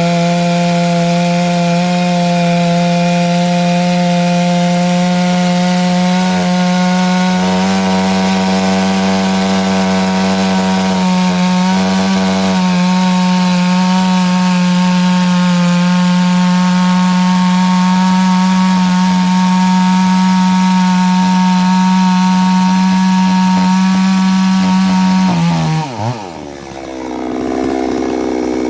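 Two-stroke chainsaw held at full throttle, cutting through wood, with an even, high engine note. About 25 seconds in, the throttle is released and the revs drop sharply, then pick up again near the end.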